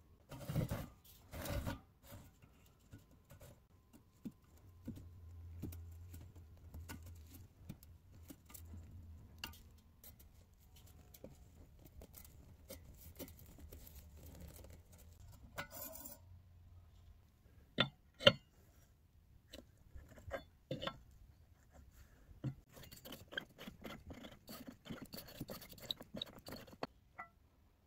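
Small metallic clicks, taps and scrapes from rusty steel stove parts being worked with a screwdriver on a wooden bench, as a bent wire clip on the pot-support ring is prised at. Two sharp clicks in quick succession are the loudest.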